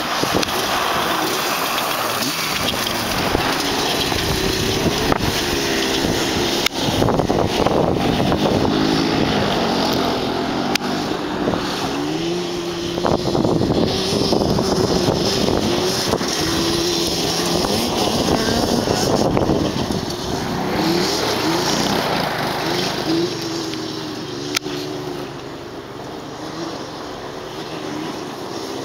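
Yamaha Banshee's 350 cc twin-cylinder two-stroke engine, breathing through FMF Fatty expansion chambers and PowerCore 2 silencers, revving up and down over and over as the quad is ridden, its pitch rising and falling with each throttle blip.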